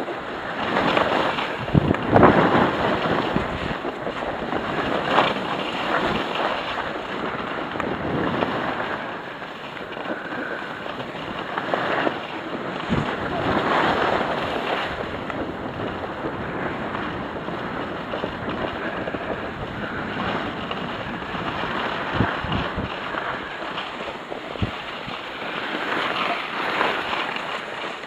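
Skis sliding and scraping over packed snow, rising and falling in swells, with wind rushing over the microphone of a camera carried by a moving skier.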